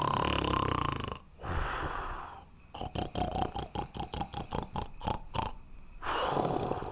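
A sleeping man snoring. A loud snore with a thin whistling tone is followed by a breath, then a fluttering snore of quick pulses, about five or six a second, lasting nearly three seconds, and another snore near the end.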